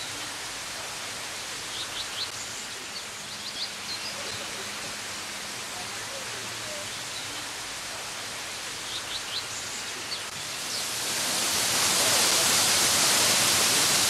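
Steady rush of falling water with a few short, high bird chirps, then about eleven seconds in a much louder, close rush of a mountain waterfall splashing down a rock face.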